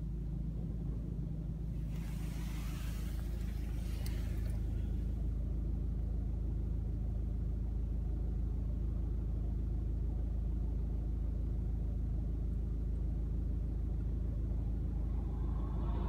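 Steady low rumble inside a car cabin buffeted by strong wind, with a stretch of gusting hiss about two to five seconds in.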